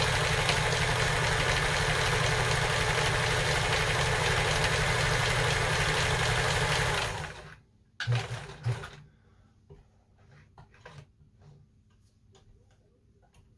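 Kenmore 158.14000 sewing machine stitching at a steady speed, then stopping about seven seconds in. After a brief second run a second later, only faint clicks and rustles of the fabric being handled remain.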